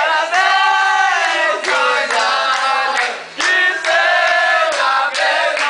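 A group of people singing a birthday song loudly together, in long held notes. There is a brief break a little past halfway.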